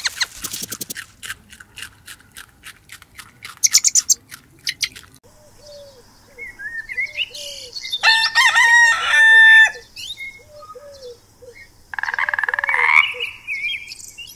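A rooster crowing once, loud and drawn out, about eight seconds in, with short soft clucking notes repeating around it. Before that comes a run of quick crisp clicks of a rabbit nibbling grass. Near the end a frog gives a short rasping croak.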